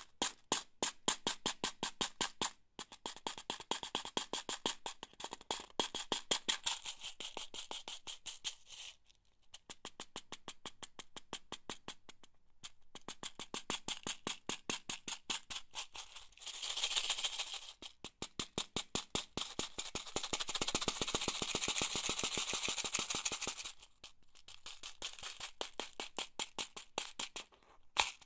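Box of office pins shaken, the pins rattling in rapid, evenly spaced clicks at about seven a second, in runs with short breaks. Twice after the middle the clicks merge into a longer, continuous hissing rattle.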